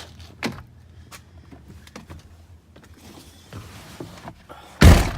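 A few light clicks and rustling as someone climbs into a Ford F-250 pickup, then a single heavy thud near the end as the truck's door shuts.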